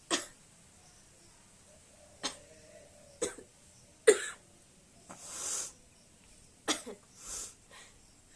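A woman coughing in about five sharp single coughs spread a second or two apart, with longer breathy inhales after the middle coughs.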